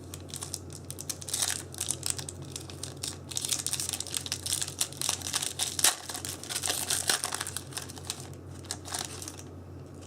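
Foil trading-card booster pack wrappers crinkling and tearing as they are pulled open by hand: a dense, irregular crackle that dies away shortly before the end.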